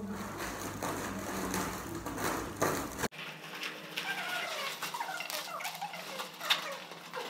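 Plastic mailing bag and bubble wrap crinkling and rustling as they are pulled off a box by hand, with many small crackles. The sound changes abruptly about three seconds in, and the crinkling then goes on with short high squeaks of plastic rubbing.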